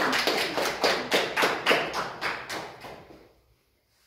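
Applause from a small group of people, dense clapping that thins out and dies away about three seconds in.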